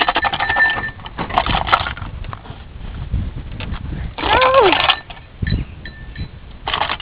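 Goats scuffling and rustling around a tin can of cat food. About four seconds in, a goat gives one short bleat that falls in pitch.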